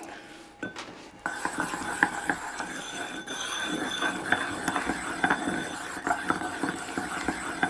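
Wooden pestle stirring a thick, gritty paste of mica powder (kira) in a ceramic mortar: a continuous scraping with small clinks against the bowl, starting about a second in. The paste is being worked to bring out the mica's luster.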